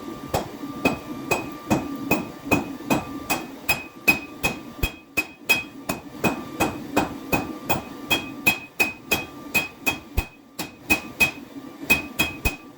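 Hammer blows on a knife blade being forged on an anvil, about three strikes a second. The anvil gives a ringing tone, and the hammering pauses briefly twice.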